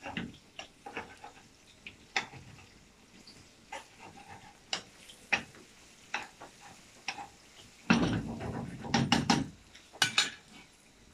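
Metal spatula scraping and tapping against a non-stick wok as sliced onions and green chilies are stirred in oil, with a faint sizzle of frying. About eight seconds in there is a louder stretch of clattering noise lasting a second or so, followed by a few sharp clicks.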